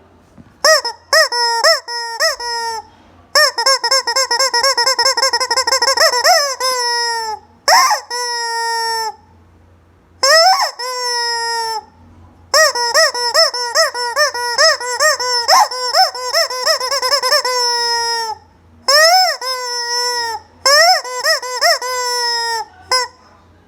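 Rubber squeeze-toy chicken being squeezed over and over, squeaking loudly. It gives short single squeaks, two long fast runs of quick squeaks, and a few longer squeals that swoop up and down in pitch and then hold, with brief pauses between.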